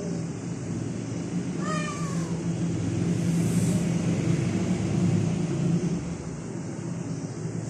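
A cat gives one short, high meow that falls in pitch about two seconds in, over a steady low drone that grows louder in the middle.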